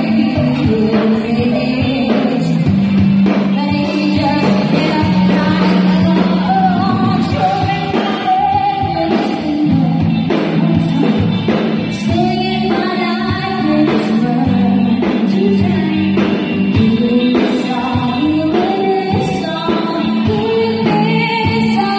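Live rock band playing: a woman sings sustained, wavering notes into a microphone over electric guitar, electric bass and a drum kit keeping a regular beat.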